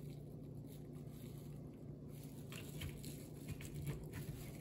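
Faint light clicks and taps of hands working a rear wiper arm and its plastic cover, a handful of them in the second half, over a faint steady hum.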